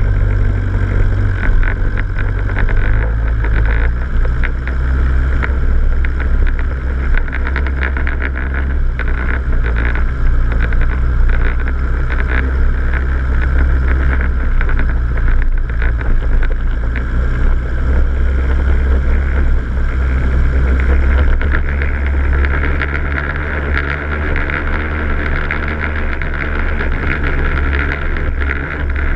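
Vehicle engine running with a low, steady hum as it drives a rough, stony dirt track, its pitch stepping up and down now and then. Frequent short knocks and rattles come from the bumpy ground, heard close from the bonnet.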